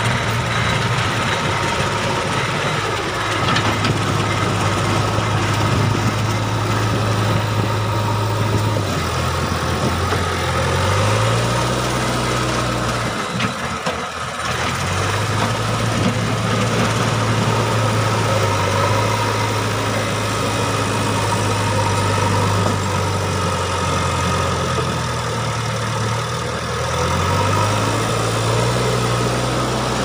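JCB 3DX backhoe loader's diesel engine working under load as the front bucket pushes stone and soil; the engine note drops and picks up again a few times, with a brief dip about halfway through.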